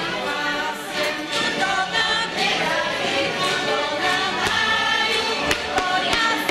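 A group of voices singing a folk song together, with a few sharp taps scattered through it.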